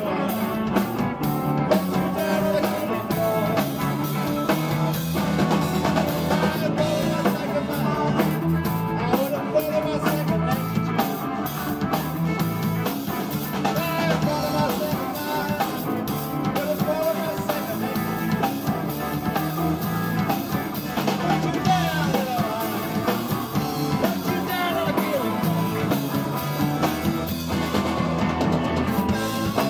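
Live blues-rock band playing: electric guitar through an amplifier over a drum kit.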